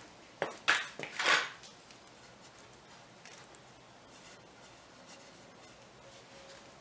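Hand tools and wood being handled: a few sharp clacks and a short scrape in the first second and a half, then low room tone.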